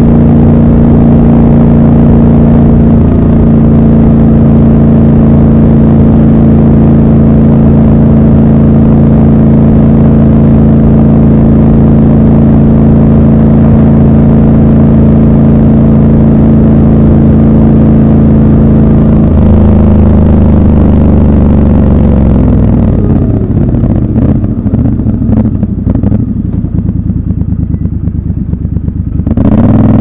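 Triumph Scrambler 1200 XC's parallel-twin engine cruising at steady revs, then the throttle closes about two-thirds of the way through: the revs fall and the engine runs quieter and uneven on the overrun, picking up again right at the end as the bike accelerates.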